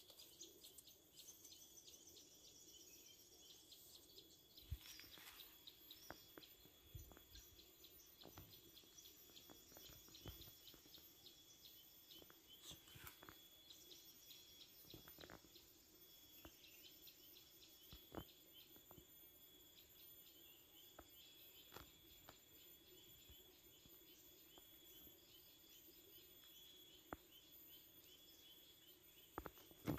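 Faint insects chirping, a steady high trill with rows of rapid chirps over it, and now and then a soft click.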